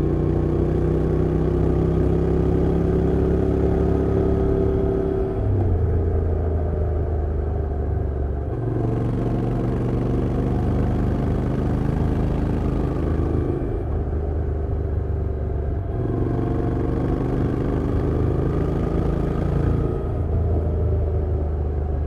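Honda NC750X's 745 cc parallel-twin engine and exhaust heard under way. The revs climb steadily under throttle and then drop, the sound softening, about three times, as the rider eases off or changes gear.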